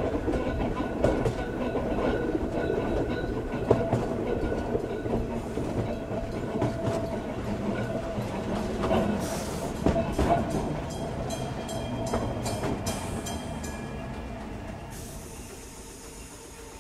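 Ueda Kotsu's round-window electric car Moha 5253 running over jointed track, wheels clicking, then slowing and growing quieter as it draws into a station. A short hiss comes near the end. Heard from inside the car with the microphone pointed outside.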